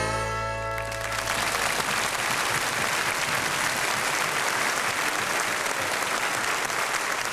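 A country band's closing chord on guitars rings out and fades within about the first second, then a studio audience applauds steadily.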